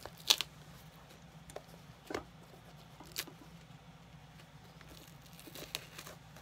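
Pliers gripping and yanking old stitching and the leather welt out of a dress shoe's sole: a few sharp snaps and clicks at irregular intervals. The loudest is a close pair near the start, and a quick cluster comes near the end.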